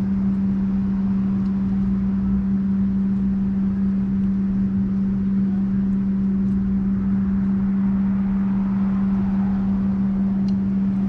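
A steady mechanical hum with one constant low tone over a noise bed, unchanging throughout, with a few faint ticks.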